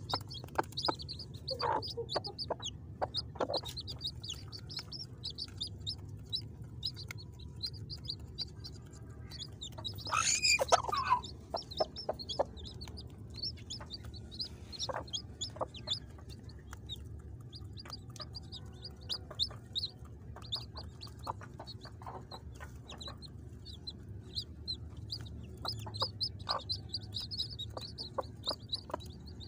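Newly hatched chicks peeping continuously in quick, high chirps, with a mother hen giving low clucks now and then. One louder call rings out about ten seconds in.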